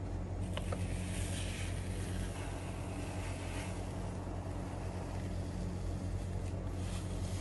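Steady low background hum, with a faint scraping from about one to three and a half seconds in as an ice cream scoop drags through frozen mango ice cream in a metal tray, and a couple of small clicks just before.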